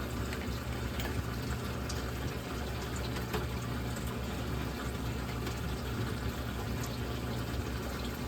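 Steady water flow and a low, constant pump hum from a saltwater reef aquarium's circulation, with a few faint clicks of small parts being handled.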